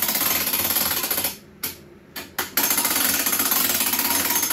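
Cordless impact driver with a deep socket hammering a half-inch nut snug: a loud rapid rattle that stops a little over a second in, gives two short blips, then runs again for about two seconds.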